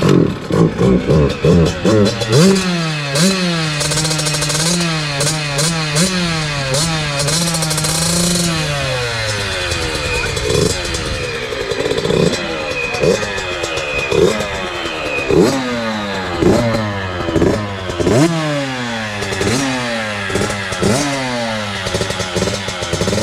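A small Yamaha engine that has just caught on a start attempt, being revved in repeated throttle blips, its pitch rising and falling. It holds a steadier speed for a few seconds, then goes back to quick revs about once a second.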